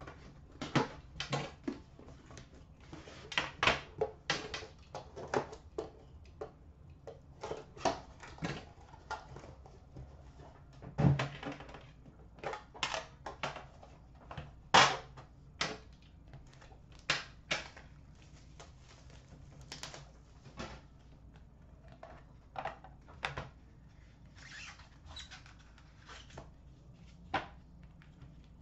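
Handling of a cardboard 2013-14 Upper Deck The Cup hockey card box as it is opened: the seal is picked and torn, the inner box is slid out of its sleeve and the lid lifted off. The handling gives a long irregular series of sharp clicks, taps and scrapes, loudest about 11 and 15 seconds in.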